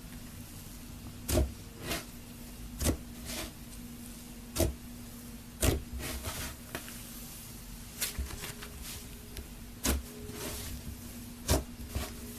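Slime being squeezed and poked by hand, giving irregular sharp pops and clicks about once a second, over a low steady hum.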